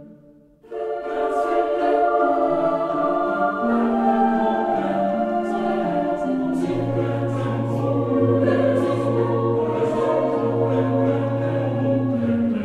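Background music of a choir singing slow, sustained chords, starting after a brief gap about half a second in. A deep held bass note comes in about halfway through.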